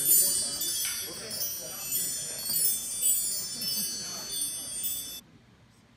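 Chimes ringing, many high overlapping tones sounding together, that cut off suddenly about five seconds in.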